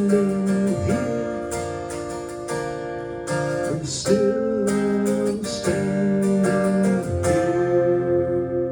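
Acoustic guitar strumming chords as the song's instrumental close; about seven seconds in, a last chord is struck and left ringing.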